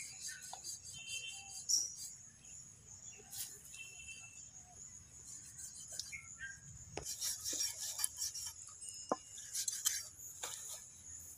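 A knife cutting and scraping through the hide and flesh of a cow's head in short, irregular strokes, thicker in the second half, over a steady high insect drone.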